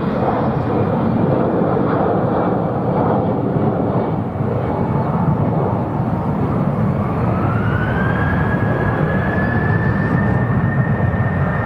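Airbus A380's jet engines, a steady loud roar; about seven seconds in a whine rises in pitch and then holds, as the engines spool up.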